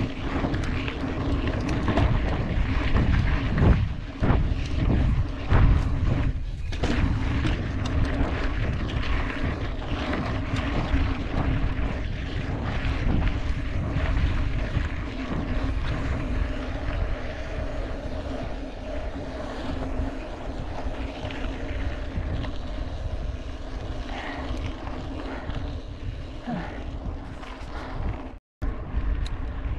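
Mountain bike riding fast over a dirt track: wind rushing over the microphone and the tyres rumbling on dirt, with a steady hum and some heavier jolts a few seconds in. The sound cuts out for a moment near the end.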